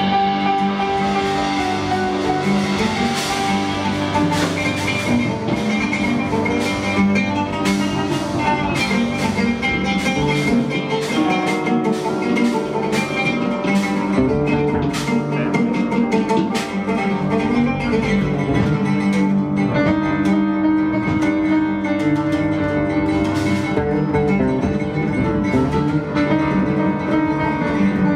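Live ensemble music: an oud plucked in quick runs over a steady electric bass line, with percussion striking throughout.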